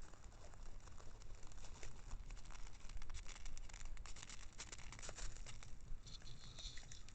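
White-tailed deer nosing and sniffing at a trail camera: close scratchy rustling with many sharp crackly clicks, busiest in the middle few seconds.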